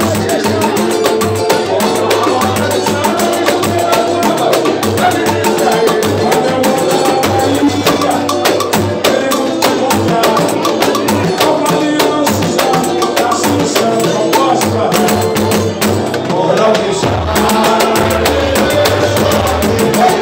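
Live samba from a roda, with a pandeiro played up close: its jingles and strikes on the head carry over the rest of the group's instruments and a low bass line.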